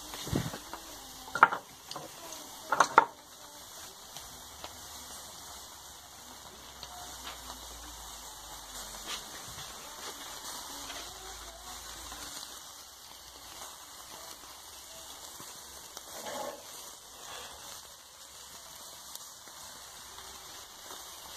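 Sausages and beef sizzling over hot charcoal on a grill, a steady crackling hiss. A few short, loud sounds stand out in the first three seconds.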